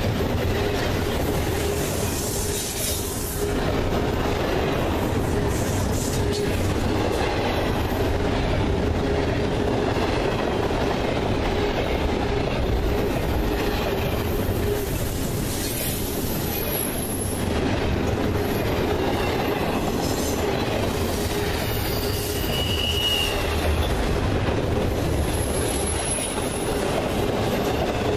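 Double-stack intermodal freight train rolling past: a steady rumble of steel wheels on the rails with clicking over the rail joints, and a few brief high wheel squeals.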